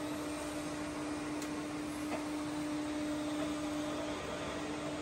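Hwacheon HMV-1100 vertical milling machine's power table feed running: a steady mechanical hum with one constant tone, which weakens about four seconds in as the feed rate is being changed.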